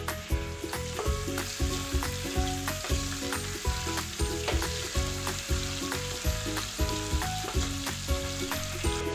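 Hot cooking oil sizzling steadily in a pan as food fries, over background music with a steady beat.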